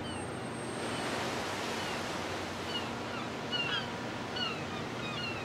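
Sea waves washing with a steady rush that swells a little after the first second. Throughout, birds give many short, high, falling calls.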